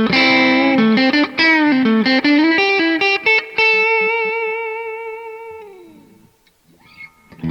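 MUSI Virgo Fusion, a Telecaster-style electric guitar, playing a quick single-note lead line, then a long sustained note with vibrato that slides down and fades out about six seconds in.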